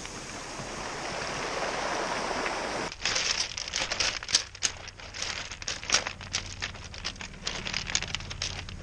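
Surf washing over a cobblestone beach, then, after about three seconds, a dense clatter of sharp clicks as the retreating wave rolls the round stones against each other.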